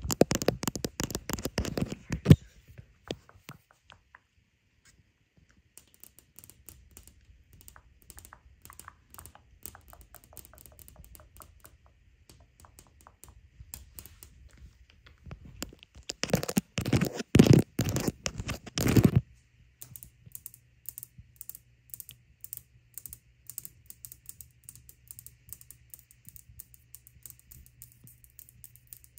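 Long fingernails tapping rapidly on hard surfaces (tile floor, plastic phone case, stone countertop) in fast clicking runs. The tapping is loudest in a burst over the first two seconds and in another about two-thirds through, and lighter in between and toward the end.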